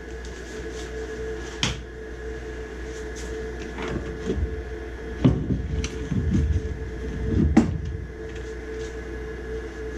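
Knocks, clicks and clatter of metal furnace parts and tools being handled, loudest and busiest in the middle, over a steady mechanical hum.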